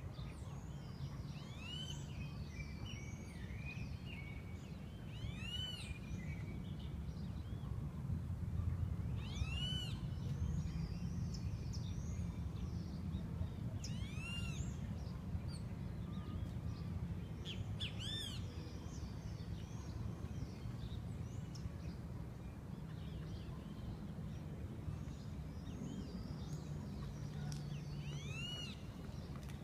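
A flock of swallows twittering and chirping, with a louder rising-and-falling call repeating every few seconds, over a steady low city rumble.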